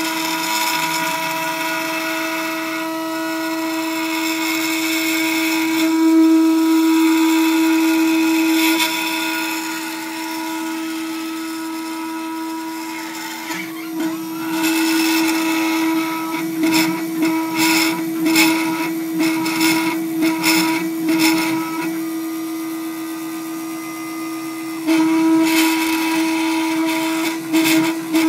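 Gravograph IS400 engraving machine running: a steady motor whine from the spindle, with irregular crackling bursts in the second half as the cutter works the two-layer plastic.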